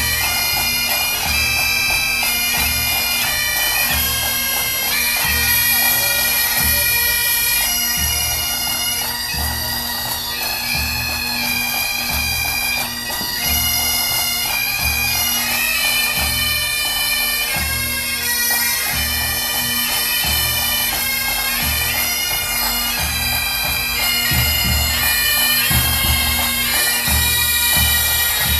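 Pipe band playing: Great Highland bagpipes carry a tune over their steady drones, with a bass drum beating a regular pulse beneath.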